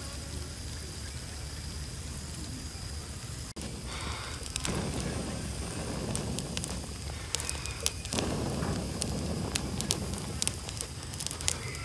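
Wood fire of glowing charcoal embers and small flames crackling, with a steady hiss. After a change about three and a half seconds in, it grows louder and gives many sharp pops and snaps through the second half.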